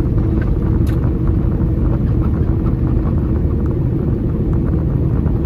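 Semi truck's diesel engine droning steadily with road noise, heard from inside the cab while cruising.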